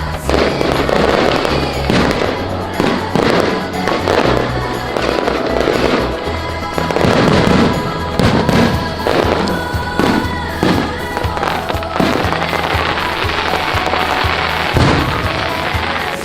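Fireworks going off in a dense, irregular run of bangs and crackles, several a second, over music with a steady bass line.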